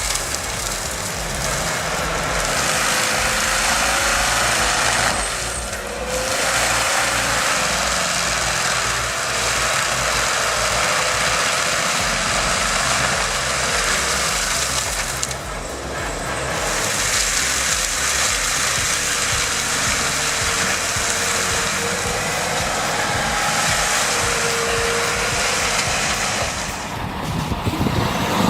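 A heavy forestry machine runs hard under load: a steady engine drone under a loud, dense grinding noise that eases off briefly three times.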